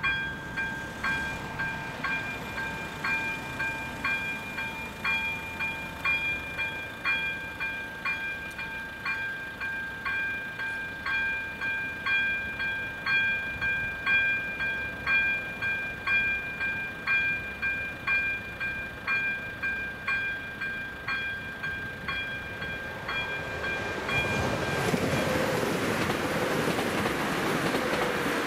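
Level crossing's warning bell ringing in steady, rapidly repeated strokes while the red lights flash. About 24 seconds in, a ČD RegioPanter electric multiple unit comes up and runs over the crossing, and its louder wheel and running noise covers the bell.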